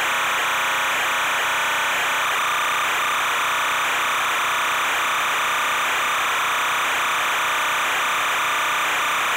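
Steady electronic hiss with faint steady tones underneath, unchanging throughout: noise on the recording's audio track rather than any event.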